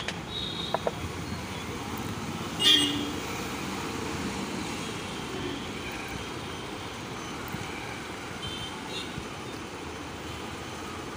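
Steady background road-traffic noise with a short vehicle horn toot about three seconds in. A light metallic clink about a second in as small steel hammer parts are handled over a tin tray.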